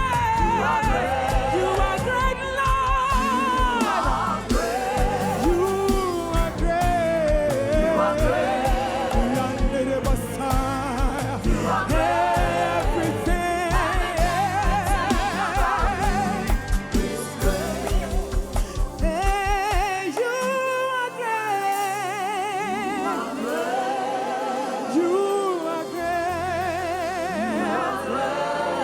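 Gospel worship song: a solo voice sings a melody with wide vibrato over a band with a steady low beat. The bass and drums drop out about two-thirds of the way through and come back in near the end.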